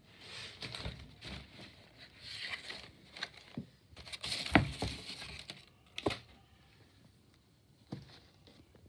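Close handling noise: rustling and a few sharp knocks as a leather sneaker is handled and moved on carpet. The loudest knock comes about halfway through.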